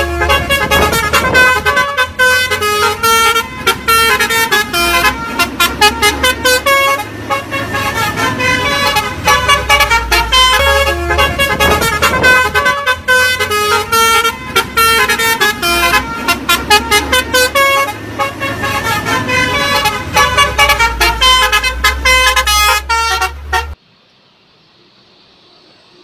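Bus 'telolet' multi-tone horn playing a rapid, jingly melody of stepped notes over the bus's low engine rumble, cutting off abruptly near the end.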